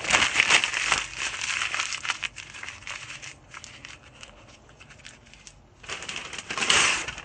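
A small piece of paper being crinkled and crumpled by hand, a dense crackling that is busiest in the first two seconds, dies down in the middle, and picks up again near the end.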